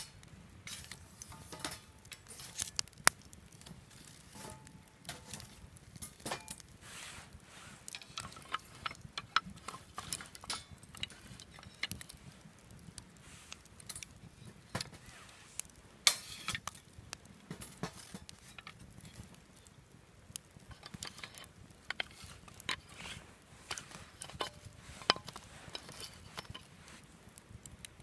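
Wood fire burning in a fire stand, crackling with irregular sharp pops and snaps.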